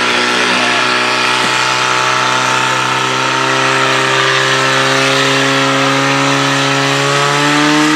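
Small petrol engine of a portable fire-sport pump running at high revs, a steady drone whose pitch creeps up slightly near the end, as it drives water into the attack hoses.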